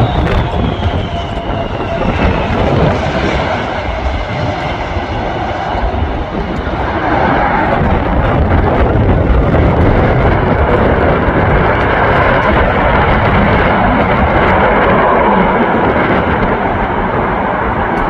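Jet engines of a Boeing 747-400 freighter. A high whine falls in pitch over the first couple of seconds, then a broad, rushing engine roar grows louder from about seven seconds in. Wind rumbles on the microphone throughout.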